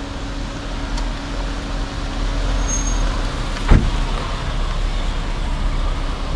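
Steady low rumble like a running motor vehicle, with a single sharp knock a little past halfway.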